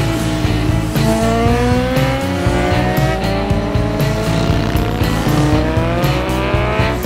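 Motorcycles riding past one after another, their engines rising in pitch as they accelerate, twice in a row. Background music plays under them.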